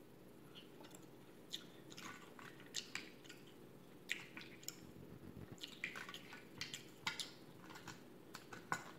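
Crab leg shells being snapped and pulled apart by hand, along with wet chewing of the crab meat: an irregular run of short, sharp crackles and clicks over a faint steady hum.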